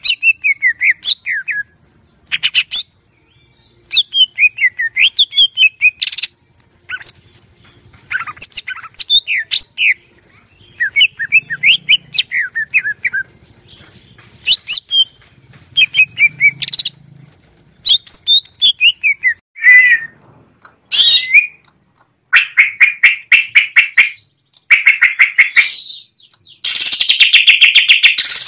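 Cucak ijo (green leafbird) singing a rapid series of chirping, whistled phrases, each a second or two long with short pauses between, many notes sliding downward. In the last few seconds it breaks into fast, rattling trills of rapidly repeated notes, the loudest part.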